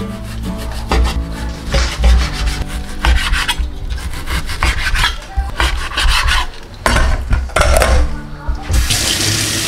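Knife cutting raw pork belly on a cutting board: repeated sawing strokes of the blade through the meat, rubbing and scraping against the board.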